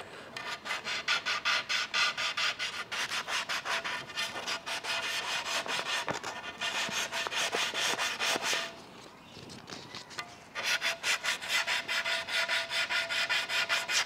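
Sandpaper rubbed by hand back and forth over a hydrofoil's surface in quick, even strokes, about three to four a second, smoothing out scratches. The strokes stop for about two seconds partway through, then carry on.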